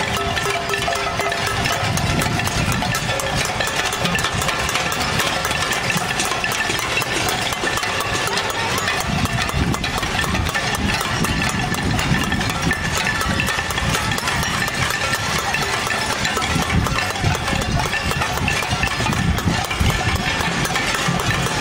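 Many pots and pans being beaten by a marching crowd: a dense, continuous clatter of struck metal with ringing tones.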